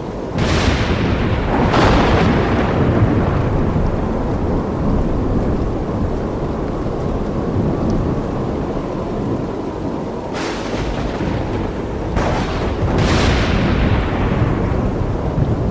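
Thunderstorm: steady rain with sharp cracks of thunder that rumble away, two close together near the start and three more in the last third.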